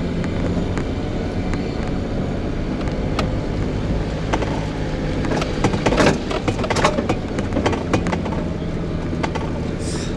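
Daihatsu Hijet Cargo kei van's engine running steadily with tyre and road noise, heard from inside the cabin as it drives slowly over grass. A few short knocks and rattles come around the middle.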